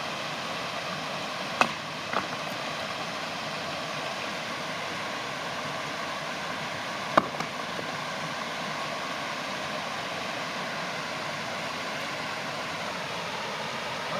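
A steady rushing noise, like running water or a hiss, with a few sharp clicks or knocks: two close together about a second and a half in, and a louder one about seven seconds in.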